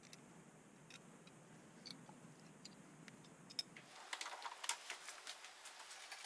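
Faint, sparse metal clicks as a bolted file-guide jig is handled and fitted onto a steel knife blade. About four seconds in comes a quicker run of clicks and light scraping as the blade is set into the jaws of a bench vise.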